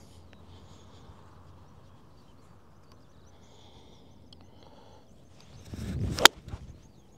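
A 7-iron golf shot: a brief rising swish of the downswing, then one sharp click as the clubface strikes the golf ball about six seconds in. The golfer felt he didn't compress the strike enough.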